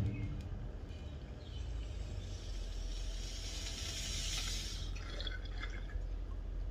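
Water bubbling in a glass bong as a large hit is pulled through it. The bubbling builds to a steady rush about halfway through, then breaks into smaller gurgles and fades. A short knock sounds at the very start.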